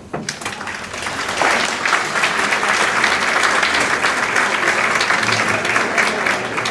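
Audience applauding: many hands clapping, swelling over the first second and a half, then holding steady and easing slightly near the end.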